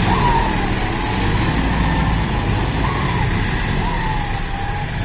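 John Deere 5210 tractor's three-cylinder diesel engine running steadily as the tractor works through soft mud.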